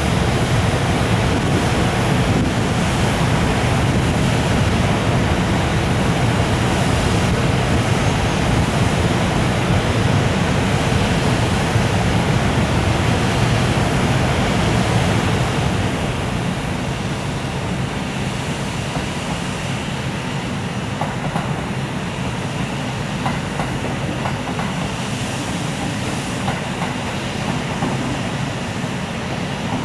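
Freight train of container wagons rolling past as it pulls out of the station: a steady, dense rumble of wheels on rails. It grows somewhat quieter about halfway through, with a few light clicks after.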